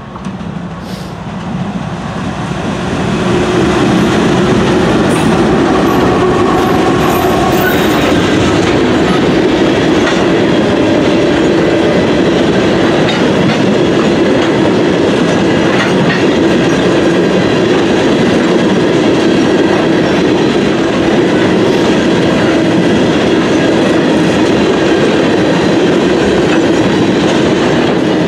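Norfolk Southern freight train passing close by: the lead diesel locomotives grow louder over the first few seconds as they come past. Then a long string of tank cars rolls by with a steady rumble and wheel noise on the rails.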